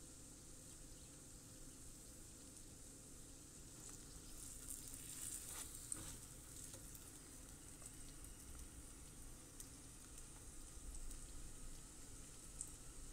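Faint sizzling of food frying in oil: a paratha on a griddle, then spiced brain masala in a pan. The sizzle grows louder and crackles for a couple of seconds about five seconds in.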